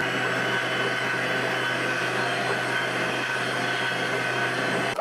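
Handheld electric mixer running at a steady speed, a motor hum with a steady high whine, its beaters whipping egg-and-sugar sponge cake batter.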